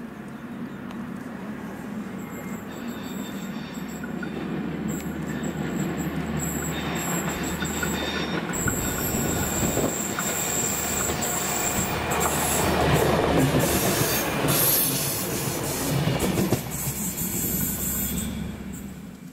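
Diesel multiple unit approaching and passing: engine hum and wheel noise grow louder to a peak about two-thirds of the way through, then die away. A thin, high wheel squeal runs through the first half.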